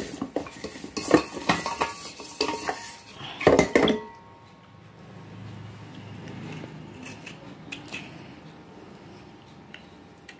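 Wet fired-clay pot shards rubbed and knocked against a stainless steel bowl of water, a run of sharp clinks and knocks for about four seconds as their soaked outer layer is scrubbed off. After that it drops to a much quieter stretch with a few faint scratches.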